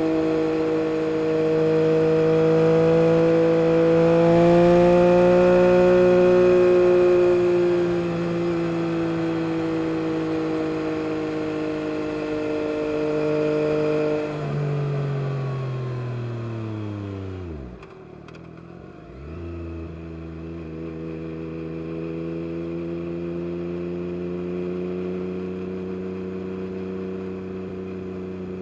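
Yamaha MT-09 SP's inline three-cylinder engine through an Akrapovic carbon race exhaust, holding a steady high note under load. About halfway the revs fall away steeply and the sound briefly drops in level. It then settles into a steady, lower engine note.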